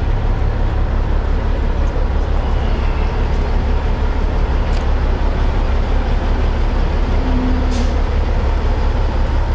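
Heavy diesel truck engine running steadily with a deep low rumble, with a brief hiss about three-quarters of the way through.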